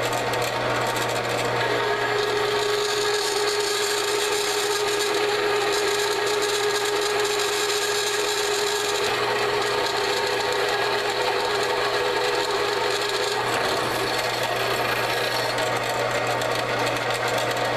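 Bandsaw running and its blade cutting into half-inch Schedule 40 steel pipe: a steady motor hum under an even, rasping cutting noise. The pitch of the cut changes a little about 13 seconds in.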